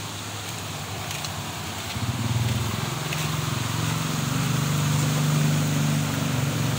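A motor running steadily with a low hum, growing louder about two seconds in and then holding.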